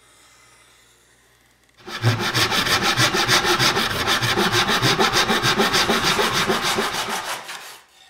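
Handsaw crosscutting a half-inch poplar board in quick, even strokes, starting about two seconds in and fading out as the cut finishes and the offcut comes free.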